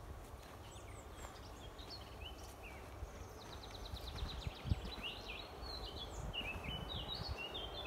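Small songbirds singing: a run of short chirps and whistles with a fast trill about three seconds in, over a steady low rumble. A single thump about halfway through is the loudest sound.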